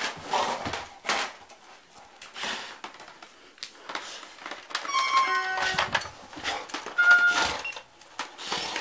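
American Staffordshire terrier pawing and mouthing a plastic toy electronic keyboard: repeated knocks and scrabbling on the plastic, with a few short electronic tones from the pressed keys about five seconds in and again near seven seconds.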